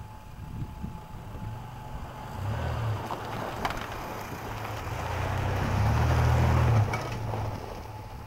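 1996 Toyota Tacoma pickup driving past over loose gravel: the engine hums low under load while the tyres crunch on gravel and a few stones click. The sound builds from about two seconds in and is loudest around six seconds in as the truck goes by, then drops off.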